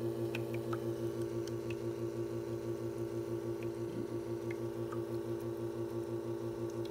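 La Marzocco GS/3's rotary vane pump running steadily at nine bar with the paddle only partly opened for slow pre-infusion, humming with a fast, even warble. The warbling is the sign that the Rhyton shaft's inlet is exposing just enough of a hole for water to trickle through, while the excess pressure is held back in the pump's bypass.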